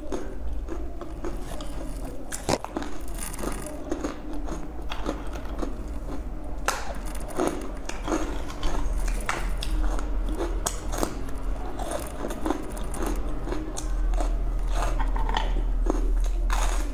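A person biting and chewing crisp dried fruit and vegetable chips close to the microphone: a long run of sharp, irregular crunches, over a steady low hum.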